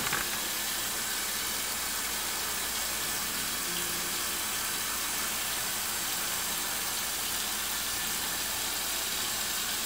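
Kitchen tap running steadily, its stream of water pouring into a stainless steel pressure cooker pot, filling it over chicken pieces.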